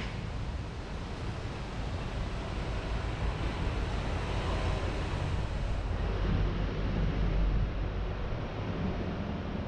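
Steady street ambience: a low rumble under an even hiss, growing louder about six to eight seconds in, then easing.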